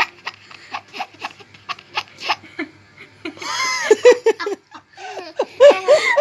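A baby laughing: first a string of short breathy sounds, then about halfway in bursts of giggling with a pitch that rises and falls, loudest near the end.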